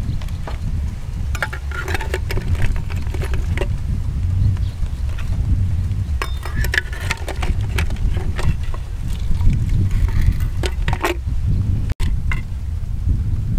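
Metal ladle scooping eggs out of a clay pot: scattered light clicks and clinks of the ladle against the pot and the eggshells, over a steady low rumble.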